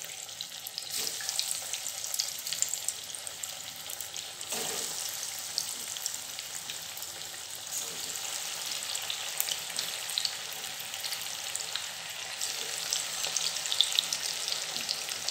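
Breadcrumb-coated potato cheese balls deep-frying in hot oil: a steady sizzle with fine crackles.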